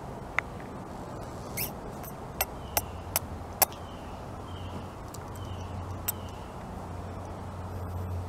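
A scattering of sharp, crisp clicks close to the microphone, most in the first four seconds and one more about six seconds in, over a low rumble that builds in the second half.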